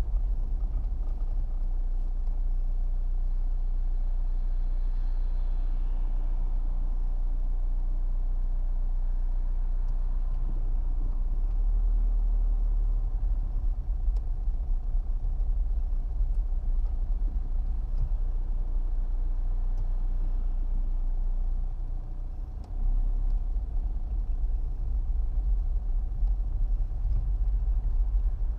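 Car engine and tyre rumble heard from inside the car while driving, a steady low drone that briefly drops away a little over twenty seconds in.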